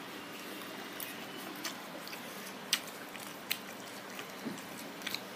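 A child quietly chewing a mouthful of pasta, with a few light clicks scattered through.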